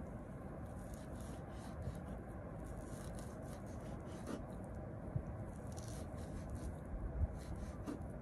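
Knife cutting raw meat into small pieces on a wooden chopping board: soft, repeated scraping slices, with a few light knocks of the blade on the board, the strongest near the end. Steady low background noise lies underneath.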